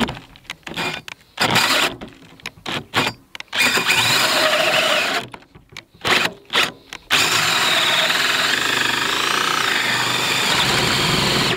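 DeWalt 20V cordless drill spinning a 3.5-inch hole saw into a wooden 2x4. It starts in short trigger bursts and a brief run as the teeth bite, then cuts steadily from about seven seconds in.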